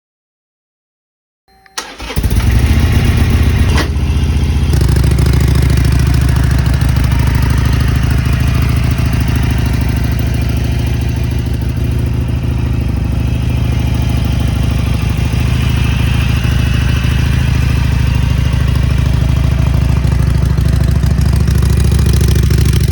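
Harley-Davidson Iron 883's air-cooled V-twin starting up about two seconds in, then settling into a steady idle.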